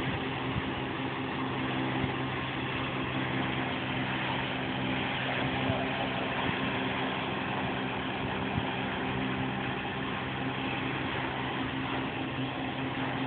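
Fire boat's engines and fire pumps running steadily while it throws water from its monitors: a constant low engine drone under an even hiss of spraying water.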